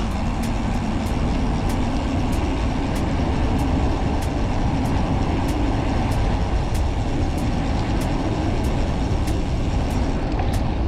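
Steady rush of wind on the microphone and tyre noise from a road bike rolling along a paved trail, with a faint regular ticking about two or three times a second.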